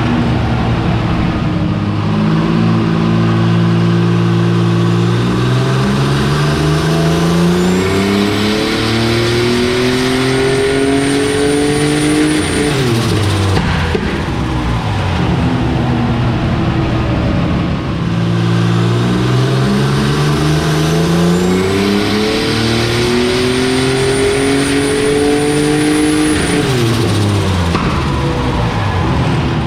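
Turbocharged Ecotec V6 in a Holden Commodore making two full-throttle dyno pulls on E85: each time the engine note climbs steadily for about ten seconds with a thin high whistle rising alongside it, then drops sharply as the throttle closes. The second pull starts a little past halfway.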